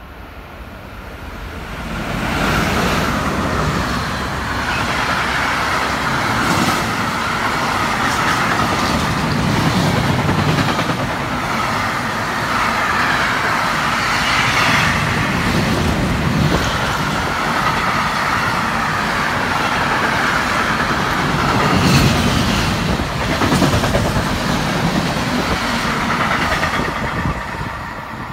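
Container freight train hauled by two class 193 (Siemens Vectron) electric locomotives passing through at speed: the rumble and rattle of wheels on rails swells over the first two seconds, then holds steady. A few sharp clacks of wheels over rail joints sound through it, and it eases near the end as the last wagons go by.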